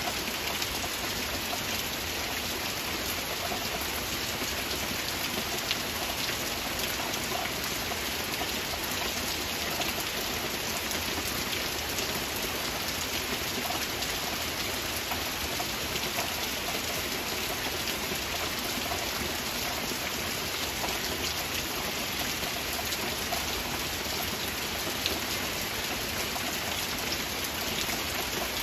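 Steady heavy rain falling: an even hiss with many scattered drop ticks, unchanging throughout.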